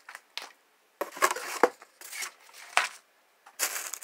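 Packaging being opened and handled during an unboxing: a few sharp clicks, then about two seconds of rustling and scraping with a couple of knocks, and another burst of rustling near the end.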